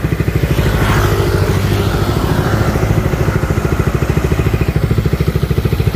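Motorcycle engine idling with a steady, fast, even pulse.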